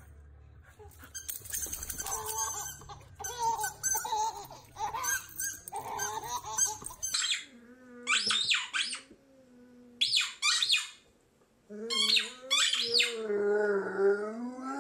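A dog chewing a squeaky ball toy: sharp high squeaks in quick groups of two or three. Near the end comes a long whine from the dog that wavers up and down. The first seven seconds hold a busy jumble of clicks and squeaks.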